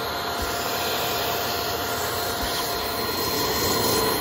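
Vacuum cleaner running steadily with a thin whine, its wand nozzle sucking up metal shavings from a freshly cut hole in a van's sheet-metal roof.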